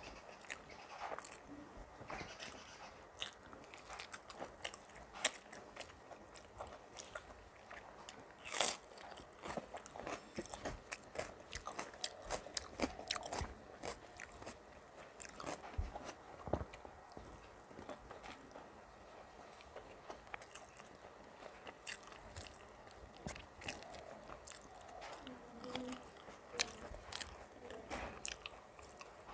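Close-miked eating: crunchy bites and chewing of fried vegetables with rice, many irregular crisp crackles and clicks, one louder crunch about eight seconds in.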